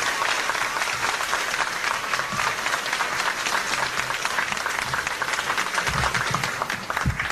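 A large audience applauding: dense, steady clapping from a packed auditorium.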